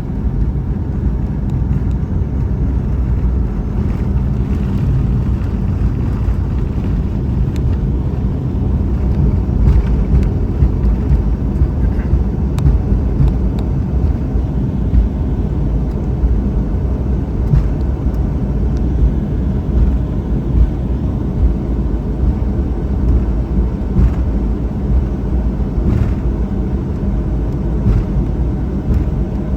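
Steady low rumble inside the cabin of a Boeing 737-800 airliner, from its engines and the airflow, growing a little louder and more uneven about ten seconds in, with a few faint light knocks.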